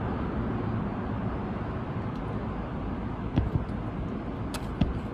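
Steady outdoor background noise, a low even rush, with a few light clicks and knocks about three and a half and four and a half seconds in.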